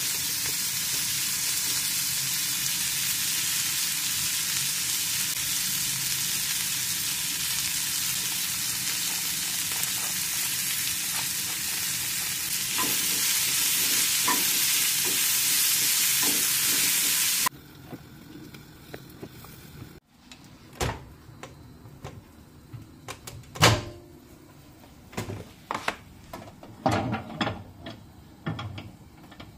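Green beans, carrots and onion sizzling in oil in a frying pan, with a few clicks of a spatula against the pan near the end of the frying. The sizzling stops suddenly about two thirds through, and scattered knocks and clicks of handling follow.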